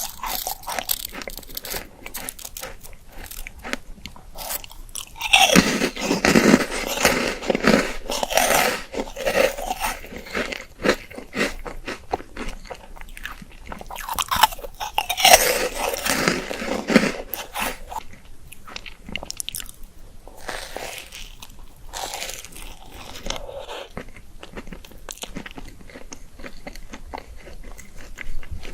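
Close-up eating sounds of a chocolate-coated Magnum ice cream bar: the hard chocolate shell cracking and crunching under bites, then chewing. There are two louder spells of dense crunching, about five seconds in and again about fourteen seconds in.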